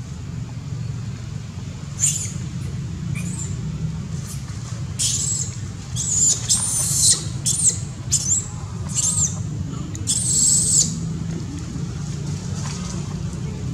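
Infant long-tailed macaque crying: a run of about eight short, high-pitched squealing screams that waver in pitch, starting about two seconds in and stopping a couple of seconds before the end. A steady low hum runs underneath.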